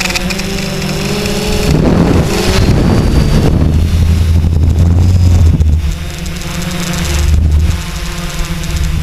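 Quadcopter's electric motors and propellers humming steadily, heard from the GoPro riding on it, with wind rumbling on the microphone in stretches, loudest from about two to six seconds in and again briefly near the end.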